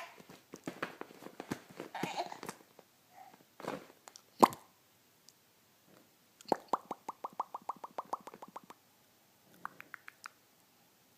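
A pet making small clicking and popping noises, scattered at first, then a quick even run of about eighteen clicks a little past the middle.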